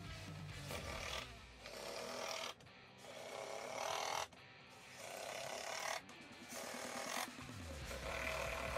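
Cordless impact driver driving screws into plywood in about six short runs, each stopping abruptly as a screw seats, over background guitar music.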